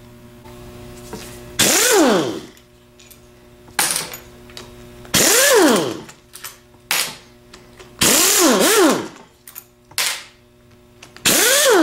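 A power driver spins up and winds down in four bursts, each a whine that rises and falls over about a second with a rattle, running out the four E8 Torx bolts from the back plate of a Delco 42MT starter.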